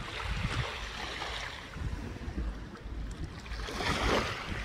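Small waves washing against a rocky shore, swelling up twice, with wind rumbling on the microphone.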